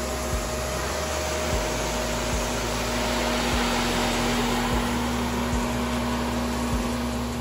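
Shark upright vacuum cleaner running steadily as it is pushed back and forth over carpet: a constant motor hum and airflow noise, with a few soft low bumps from the strokes.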